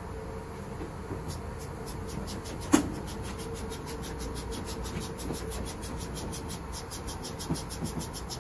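Steady machinery hum in a ship's laundry room: a low rumble with a constant mid-pitched tone. A fast, even high ticking runs over it from about two and a half seconds in. One sharp click, the loudest sound, comes nearly three seconds in.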